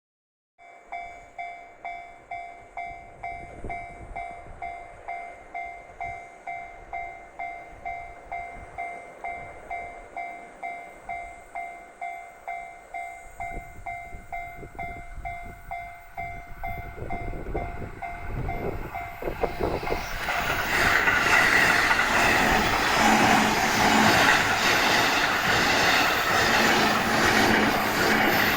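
Japanese level-crossing alarm dinging steadily, just under two strikes a second. About 13 s in, a JR East Joban Line E531-series electric train is heard approaching. From about 20 s the train passes close by, its loud running noise and rhythmic wheel clatter drowning out the bell.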